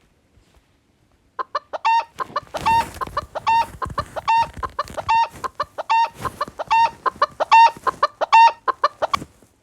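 Chicken clucking sound effect played from a prank sound app: quick clucks with a longer pitched cluck repeating about every 0.8 seconds, starting about a second and a half in.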